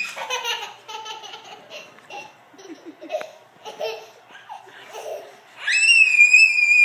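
Toddlers laughing and giggling, then near the end one lets out a long, high-pitched squeal, the loudest sound here.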